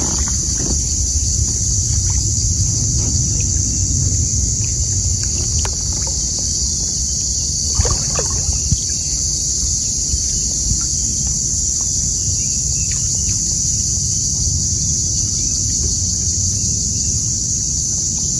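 Kayak sitting on the water: a steady low rumble, with a few short knocks or splashes from the paddle and hull around eight seconds in, under a steady high-pitched insect drone.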